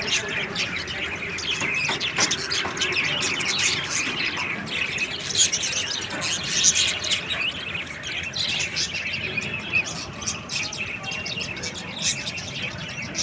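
Parrots chirping and chattering, many short calls overlapping in a dense, continuous chorus.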